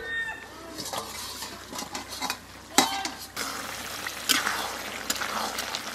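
A spatula stirring and scraping a thick, nearly dry chicken, potato and banana-flower curry in a kadai, with a light sizzle and a few sharp knocks of the spatula against the pan.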